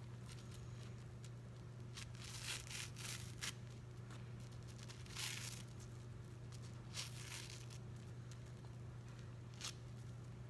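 A soap-soaked cellulose sponge being torn apart by hand in short rips. There is a cluster of rips about two to three and a half seconds in, then single rips at about five, seven and nine and a half seconds. A steady low hum runs underneath.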